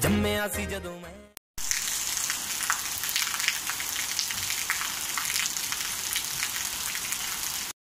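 The last of an intro jingle for about a second and a half, then rain falling on wet brick paving: a steady patter with many small drop splashes, which stops abruptly near the end.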